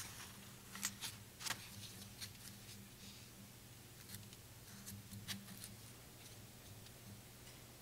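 Quiet room tone with a low steady hum and a few faint, sharp clicks scattered through the first five seconds.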